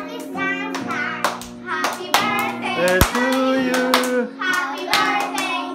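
Repeated hand claps, two or three a second, over music and singing.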